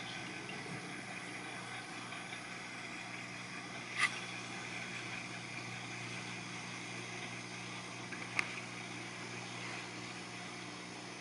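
Steady low machine hum with a hiss, broken by two short sharp clicks, one about four seconds in and another a little past eight seconds.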